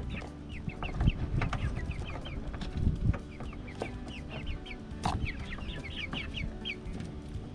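Young chickens clucking, a steady run of short, quick high calls, with a low rumble about one and three seconds in.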